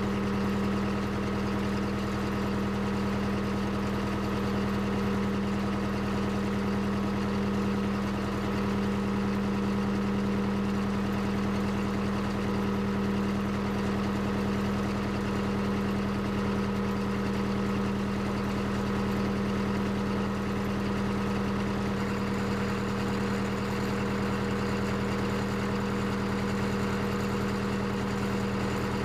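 Case 580 CK backhoe's engine running steadily, a constant drone that holds one pitch with no revving.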